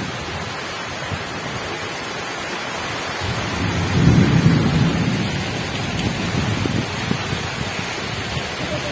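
Heavy rain pouring steadily during a thunderstorm, with a low rumble of thunder swelling about four seconds in.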